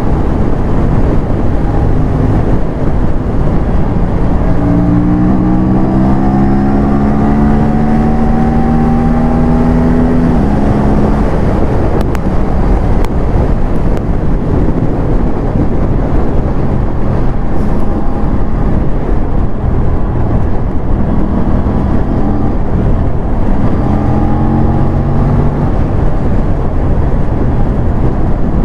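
Aprilia parallel-twin sportbike engine under way at speed, mixed with loud wind rush. The engine note climbs steadily as it pulls through the revs about five seconds in, drops back about eleven seconds in, and climbs again near the end.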